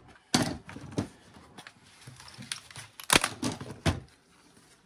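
Laptop's plastic bottom cover being pried off with a screwdriver: a string of sharp clicks and knocks as its clips let go and the tool taps the case, loudest in a cluster about three seconds in.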